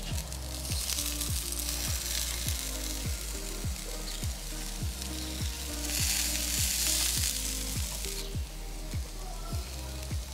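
Food sizzling in a hot frying pan, louder for a couple of seconds about six seconds in, over background music with a steady beat.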